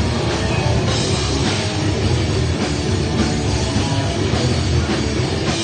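Grindcore band playing live: drum kit and heavy instruments in a loud, dense, unbroken wall of sound.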